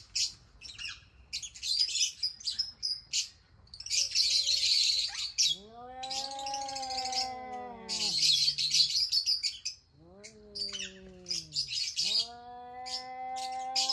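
Small birds chirping busily throughout. Three long, drawn-out pitched calls from a larger animal rise and fall over it: one in the middle, one shortly after and one near the end.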